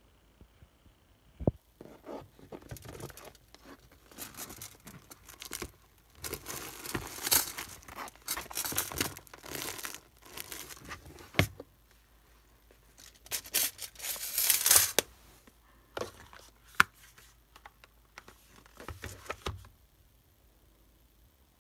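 Tissue paper stuffing inside a handbag rustling and crinkling in irregular bursts as a hand works inside the bag, with a few sharp clicks in between.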